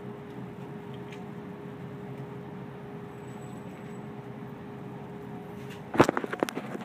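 Steady mechanical hum with a faint held tone, the background of an indoor shooting range. About six seconds in comes a quick run of sharp knocks and rustles as the phone is picked up and handled.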